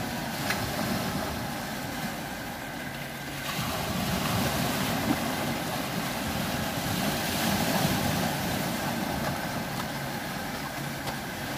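Sea waves washing on a rocky shore, with wind on the microphone; the wash grows louder about three and a half seconds in.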